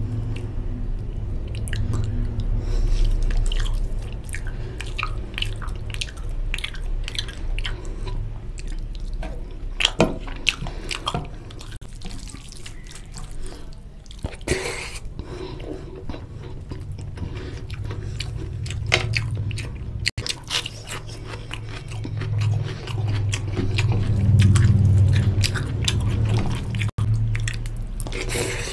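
Close-miked eating of rice and mutton curry by hand: wet squelching of fingers through gravy-soaked rice and loud chewing and lip smacking, with many short wet clicks.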